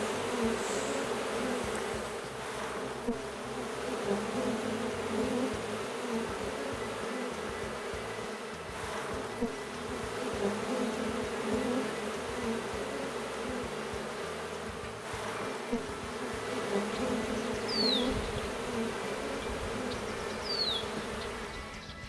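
Honeybees buzzing in a steady, even hum. Twice near the end a short, quick falling chirp sounds over it.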